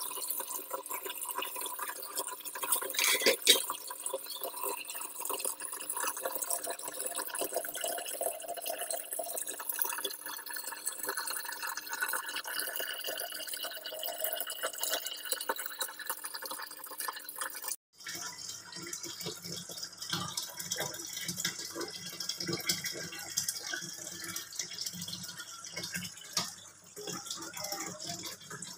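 Tomato fish curry bubbling at a simmer in a frying pan: a steady crackle of small pops and bubbles, with one sharper knock about three seconds in. The sound changes abruptly about two-thirds of the way through, turning lower and rougher.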